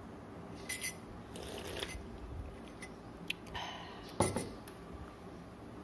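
A glass coffee mug with a metal spoon in it set down on a countertop: one sharp knock with a short ring about four seconds in. Before it come a few faint clicks and rustles of handling.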